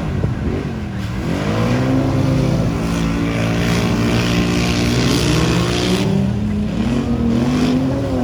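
Off-road 4x4 engines revving hard, the pitch rising and falling again and again. A rushing noise rides over them from about two to six seconds in.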